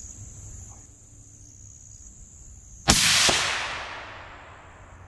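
A single rifle shot from a Sig Sauer Cross bolt-action rifle in 6.5 Creedmoor, a sudden loud crack about three seconds in. Its report rolls away over about a second and a half, with a fainter second crack a fraction of a second after the first. Crickets chirr steadily before the shot.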